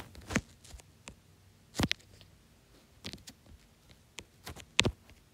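Typing on an iPad's on-screen keyboard: a string of light, irregularly spaced taps and clicks, about a dozen, as letters are entered one at a time.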